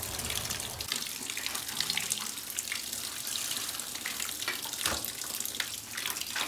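Tap water running steadily into a steel bowl of soaked dry jute leaves, with irregular splashing as hands rub and wash the leaves in the water.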